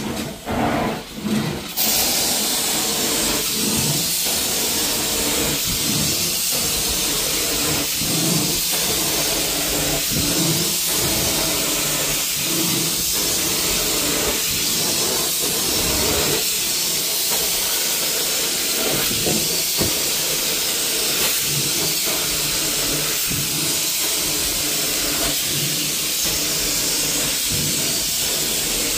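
Hot water extraction carpet wand being stroked over carpet, its spray and suction making a loud, steady hiss. The hiss comes on fully about two seconds in, after a few short bursts.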